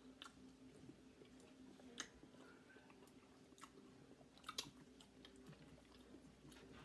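Faint close-up chewing of pigs in a blanket and fries, with a few scattered sharp mouth clicks and smacks.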